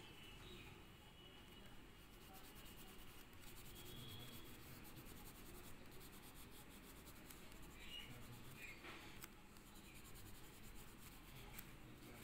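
Faint scratchy rubbing of a pastel stick on paper as an area is coloured in with short back-and-forth strokes.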